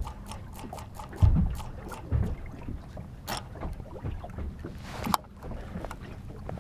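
Water slapping and lapping against the hull of a small boat at anchor, with a few low thumps and many light clicks and knocks from the boat and gear.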